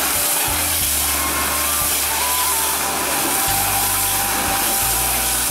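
High-pressure washer spraying water against the underside of a sailboat's hull and keel, a steady loud hiss, with a low machine hum that cuts in and out a few times underneath.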